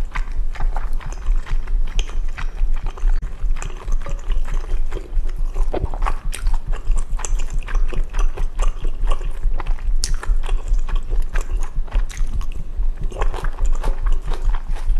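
Close-miked chewing of spicy jajangmyeon with Chinese glass noodles: dense wet, sticky mouth clicks and smacks, with a spoon touching the glass bowl. Underneath runs a steady deep rumble, which the eater takes for her own heartbeat picked up by the microphone.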